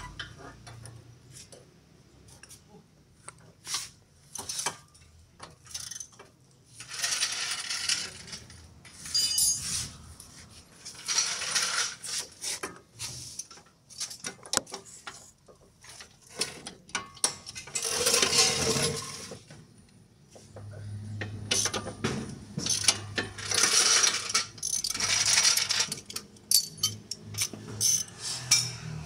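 Metal hand tools clinking and knocking, with several runs of rapid ratchet-like clicking, each a second or two long.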